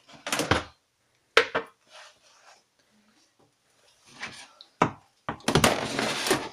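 Plastic storage bins being handled and moved: a few separate knocks and bumps in the first half, then a longer scraping shuffle of about a second near the end.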